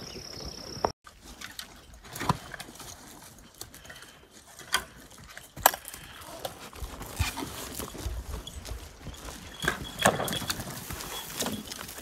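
Pack goats' hooves clicking and knocking on a rocky trail as they walk, irregular single steps a second or two apart.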